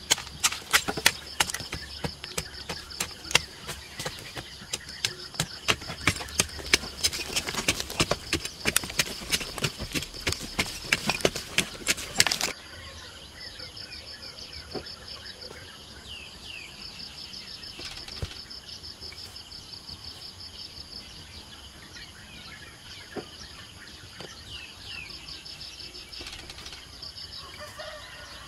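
A hoe chopping repeatedly into dry dirt, several sharp strikes a second, over a steady insect trill. About twelve seconds in the chopping cuts off abruptly, leaving the pulsing insect trill with a few bird chirps.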